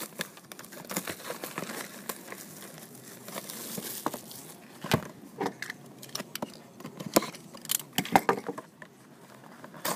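Plastic shrink-wrap being pulled and torn off a cardboard card box, crinkling, with scattered irregular clicks and knocks as the box is handled.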